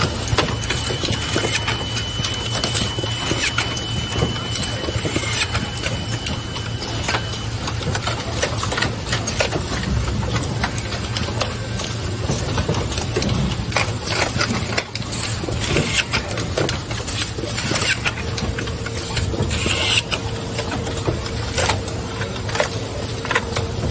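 Automated PCB glue-dispensing and conveyor line running: a steady machine hum with frequent clicks and knocks. A thin high tone sounds for the first seven seconds or so, and a steadier lower tone comes in near the end.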